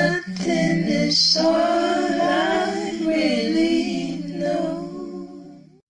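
Unaccompanied singing by layered voices in harmony, holding long drawn-out notes of the closing phrase that fade out near the end.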